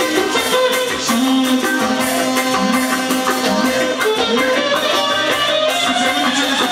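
Band dance music: a reed instrument's melody, with held notes that slide in pitch, over a steady drum beat.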